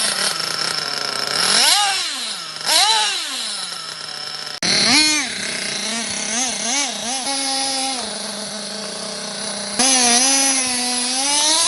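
Kyosho 1/8-scale nitro RC car's small glow-fuel engine revving, its high buzzing pitch swinging up and down in repeated throttle blips. The sound jumps abruptly twice, about halfway through and again near the end.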